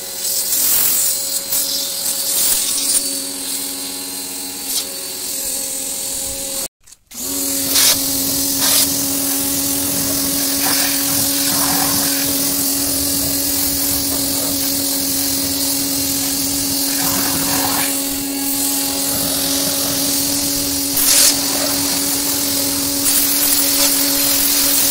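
Lotus portable power sprayer's motor and pump running steadily with a constant whine, its water jet hissing onto a car's bodywork and wheel. The sound cuts out for a moment about seven seconds in, then comes back with the whine louder.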